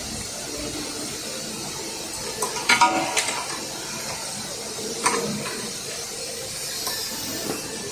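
Light metallic clinks and handling knocks from tools and metal parts being handled. There is a quick cluster of clinks with a short ring about three seconds in and a single click about two seconds later, over a steady background hiss.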